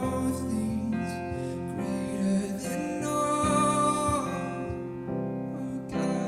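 Soft worship music with acoustic guitar and a singing voice holding long notes.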